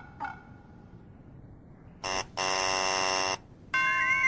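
Cartoon game-show 'wrong answer' buzzer: a short buzz, then a longer one lasting about a second. It follows a brief pitched blip and is followed near the end by a steady chord with a whistle that glides up and then down.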